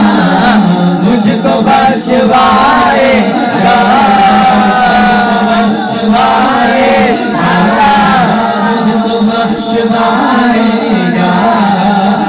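Men singing an Urdu naat unaccompanied into microphones. The lead voice draws out long, bending melismatic notes while a second voice holds a steady low hum beneath.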